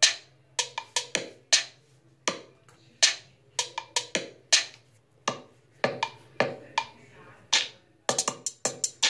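Sparse drum-machine percussion from a GarageBand beat playing on an iPad: single woodblock-like knocks and drum hits, about one to three a second, which come quicker and denser near the end.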